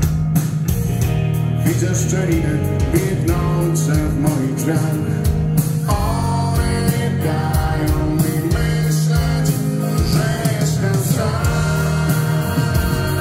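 Rock band playing live: a male singer's vocals over electric guitars, bass guitar and a steady drum beat.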